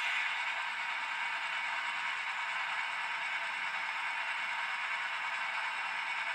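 HO scale model freight cars rolling slowly along the track: a steady rattling hiss of small metal wheels on the rails.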